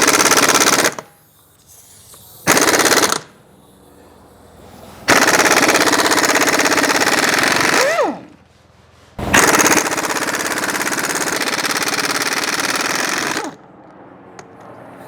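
Impact wrench hammering on a seized lug nut that won't come off: two short bursts, then two long runs of rapid hammering several seconds each.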